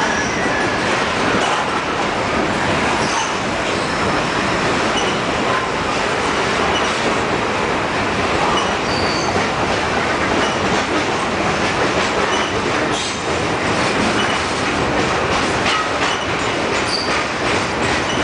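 Freight cars rolling past close by on a curve: steady wheel-on-rail noise with clicks from the rail joints and a few short, high wheel squeals from the curve.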